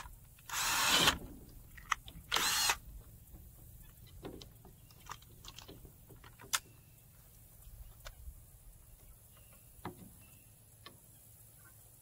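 Cordless drill running into a wooden frame in two short bursts, about a second and a half apart, followed by scattered light clicks and taps.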